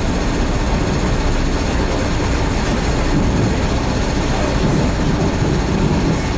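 Metra commuter train car under way, heard from inside the passenger car: a steady, even running noise of wheels on rail, strongest in the low end.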